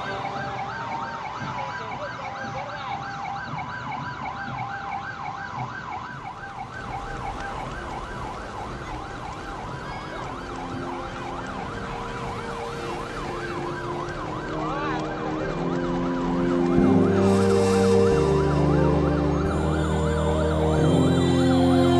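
Sirens of fire trucks and emergency vans sounding together, a fast repeating rise-and-fall of pitch over a steady tone. About 17 seconds in, louder music with heavy low notes comes in over them.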